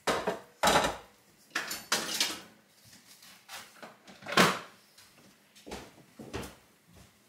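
Kitchen handling noise: dishes and cupboard doors knocking and clattering in a run of separate short impacts, the loudest a little past four seconds in.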